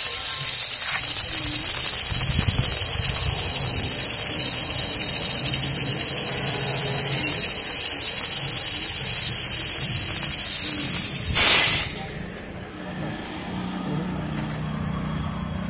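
Compressed air and water blasting out of the open drain ball valve at the bottom of an air compressor tank: a loud, steady hiss of spray as condensate water is blown out while the tank is still under pressure. Near the end it surges briefly louder, then cuts off suddenly.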